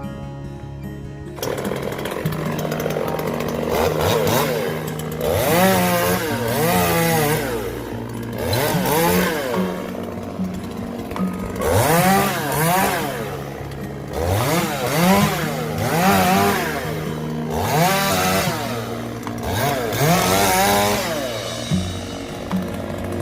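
Chainsaw starting up about a second and a half in and cutting into the trunk of a walnut tree. It is revved up and eased off again and again, each rev a rising whine.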